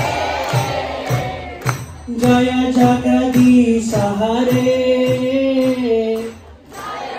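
Group devotional chanting in a kirtan: many voices singing over a drum beating about twice a second, with clapping. A long sung note is held from about two seconds in until about six seconds in.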